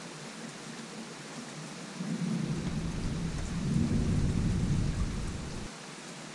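Thunder rumbling over steady rain: the deep rumble starts about two seconds in, builds to its loudest around the middle, and cuts off suddenly after about three and a half seconds.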